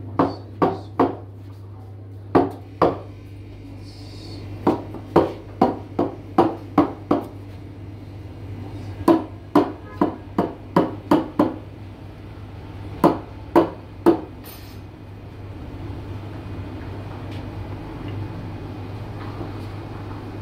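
A series of sharp knocks of coffee-making gear against a counter in quick groups of two to eight, about two or three a second, stopping after about fourteen seconds, over a steady low hum.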